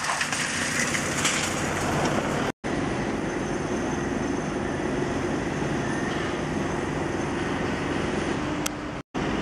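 Steady city street traffic noise: a continuous rumble and hiss, cut off sharply for an instant about two and a half seconds in and again near the end.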